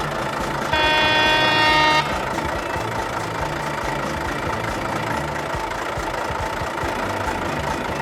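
Concrete mixer truck's engine running at idle, with one horn toot held for about a second near the start.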